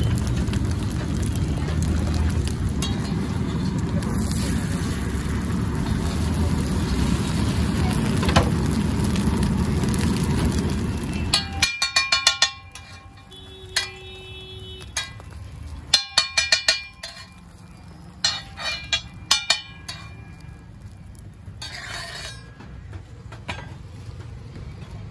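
Street-stall gas burner giving a loud steady roar that cuts off suddenly about halfway through, followed by several quick runs of ringing metallic clinks and clanks from steel cooking utensils being struck together.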